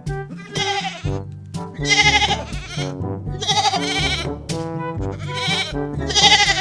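Five bleats from a goat or sheep-like animal, each wavering in pitch and under a second long, repeated about once a second over background music.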